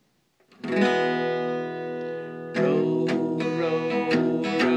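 Acoustic guitar: a chord strummed about half a second in and left ringing, then steady rhythmic strumming from about two and a half seconds in.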